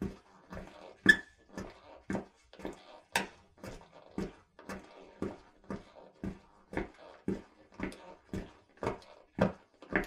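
Footsteps walking at a steady pace, about two steps a second, each a short thud. One sharper, louder step comes about a second in.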